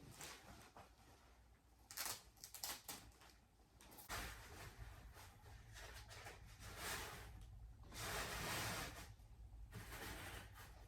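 Faint rustling of a clown costume being handled and pulled on over an animatronic's frame, in several irregular swells with a few light clicks and knocks about two to three seconds in.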